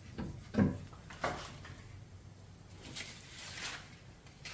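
A few soft knocks and rustles of objects being handled, with no motor running.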